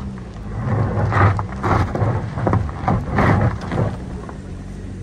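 Car driving over a rough gravel track, heard through an open side window: a steady low engine hum with irregular surges of rushing wind and tyre noise.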